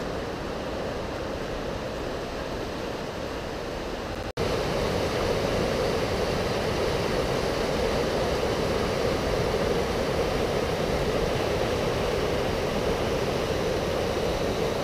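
The Breitach, a mountain river, rushing over boulders in a steady hiss of white water. About four seconds in, the sound breaks off for an instant and comes back louder and fuller as the rapids are heard from close above.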